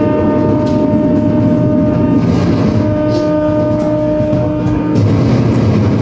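Loud live noise-music performance: several steady droning tones held over a dense, grinding rumble, with the drones changing about five seconds in.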